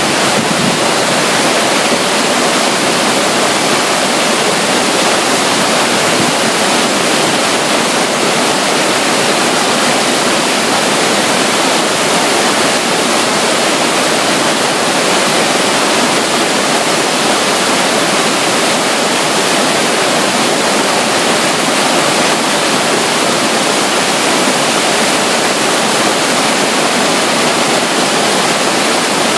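Small trickle of water running down beside a river, over the steady rush of a nearby waterfall.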